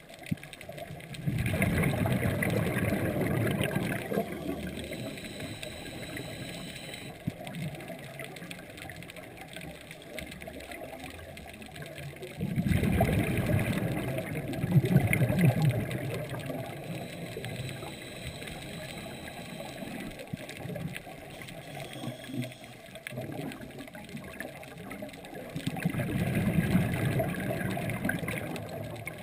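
Scuba regulator exhaust bubbles heard underwater: three long exhalations, each a rough bubbling rush of about three seconds, coming roughly twelve seconds apart, with a low steady hiss between them.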